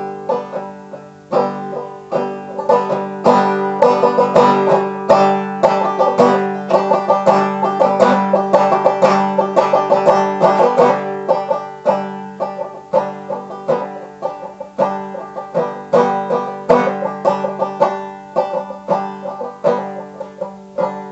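Banjo played solo in an instrumental break, a steady run of quickly picked, bright notes in a country or bluegrass style.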